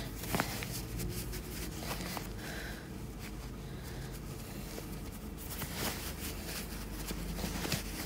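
Cotton fabric rustling and rubbing under the fingers as small sewn fabric pieces are turned right side out and their corners pushed out, with a few light ticks.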